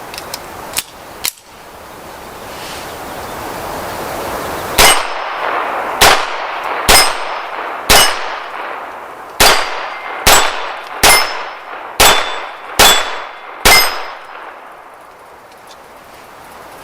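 Smith & Wesson Model 41 .22 LR semi-auto pistol firing ten shots in slow succession, about one a second, each a sharp crack with a short metallic ring. A few small clicks come in the first second or so.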